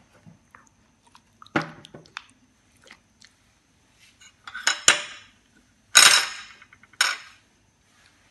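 A serving spoon scraping and knocking against dishes as curry is served: four short clinks with brief scrapes, about a second and a half, five, six and seven seconds in, the one at six seconds the loudest.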